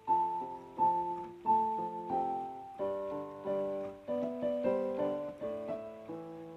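Background piano music: a gentle run of struck notes and chords, each ringing and fading.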